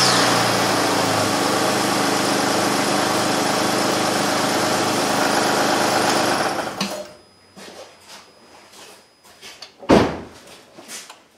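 2006 Honda Ridgeline's 3.5 L V6 idling steadily just after starting, on a new serpentine belt and tensioner with no belt chirp: the bad tensioner pulley that caused the chirping has been cured. The engine is shut off about seven seconds in, followed by a few faint knocks and a sharp thump near the end.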